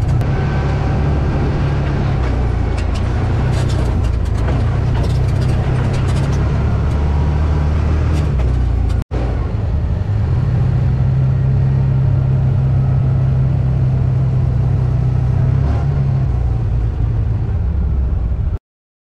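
Side-by-side UTV engine running steadily under way, a low drone heard from the open cab. It drops out for an instant about nine seconds in, and the sound cuts off abruptly near the end.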